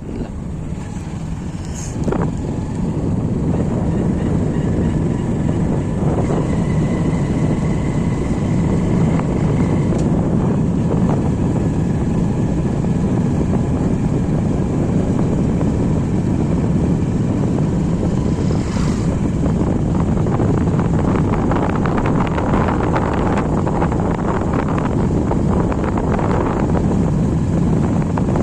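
Steady running noise of a moving vehicle, with wind buffeting the microphone. It grows a little louder about two seconds in.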